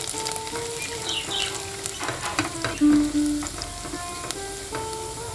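Chopped garlic sizzling in hot mustard oil in a steel kadai, stirred with a spatula that clicks against the pan now and then. A background music melody plays over it, its loudest note about three seconds in.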